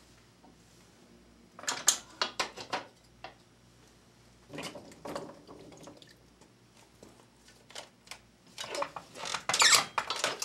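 Hand-operated floor corker in use: short runs of clicks and knocks as the bottle and cork are handled, then a louder, dense run of clicks and knocks about nine seconds in as the lever is pulled down and the cork is pressed into the wine bottle.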